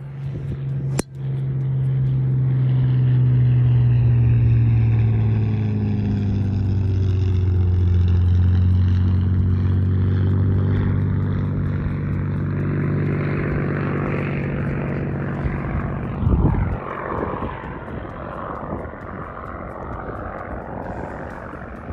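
A driver strikes a teed golf ball with a sharp click about a second in. A propeller aircraft drones overhead, its engine note slowly falling in pitch as it passes and fading, with a gust of wind buffeting the microphone later on.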